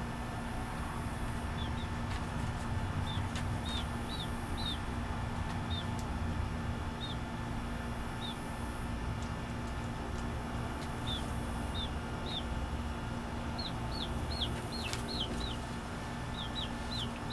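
Baby chick peeping while it is held in the hand: short, high peeps that fall in pitch, coming in scattered runs of two or three.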